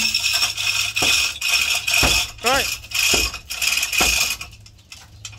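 Metal clanking and ratcheting from work on an old fishing boat's engine as it is dismantled, with heavy knocks about once a second and a short rising-and-falling squeal about two and a half seconds in, over a steady high hiss that drops out near the end.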